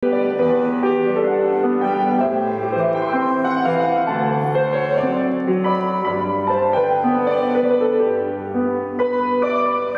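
Grand piano playing slow music, a melody over sustained chords.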